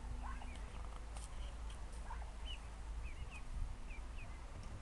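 Ducklings peeping: short, high chirps, a couple a second and irregular, over a low rumble.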